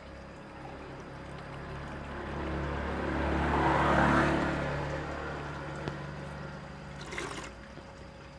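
EM4 liquid being poured from a plastic bottle into a plastic measuring jug: a trickle that swells to its loudest about four seconds in, then fades. Near the end comes a short pour as the jug is tipped into a plastic bucket.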